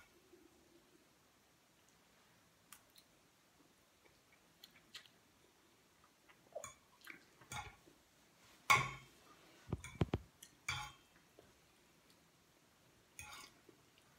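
Quiet eating sounds: a fork clicking and scraping against a plate as spaghetti is twirled up, with chewing in between. The loudest clatter comes about nine seconds in, followed by a few dull thumps and clicks.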